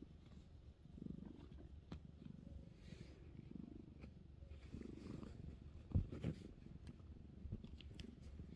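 Kitten purring softly in low swells about once a second, with a sharp knock about six seconds in.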